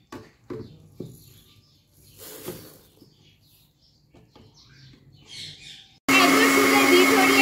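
Faint taps and rustles as sugar is tipped from a glass bowl into a blender jar of beaten eggs. About six seconds in, the electric blender starts abruptly and runs loud and steady with a constant whine, beating the sugar into the eggs.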